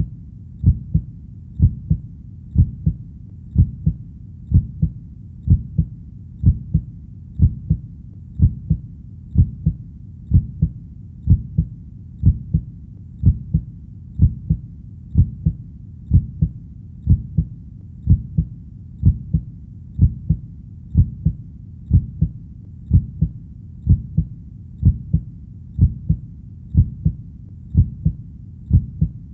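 Heartbeat sound: a steady, even rhythm of low double thumps (lub-dub), about one beat a second, over a faint low background noise between beats.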